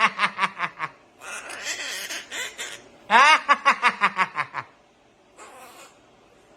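Parrot imitating a human laugh: two near-identical bouts of quick 'ha-ha-ha' falling in pitch, about three seconds apart, with a raspy chatter between them.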